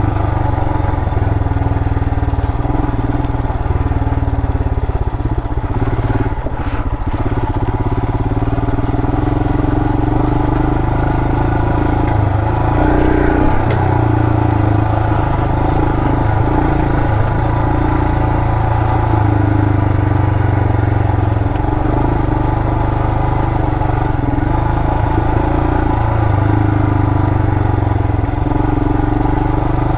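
Royal Enfield Himalayan's 411 cc single-cylinder engine running as the motorcycle is ridden steadily along a dirt trail, its note wavering a little with the throttle, heard through a helmet-mounted mic. There is a brief clatter of knocks about six to seven seconds in.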